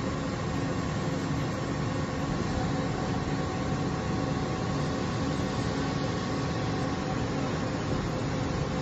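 DMG Mori NLX2000SY/500 CNC lathe running with its spindle turning a part in the chuck: a steady mechanical hum with a few held tones and a low tone that pulses about twice a second.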